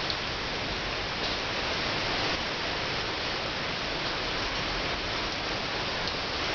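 Steady rain falling on wet paving and leaves, an even rushing noise that holds at one level.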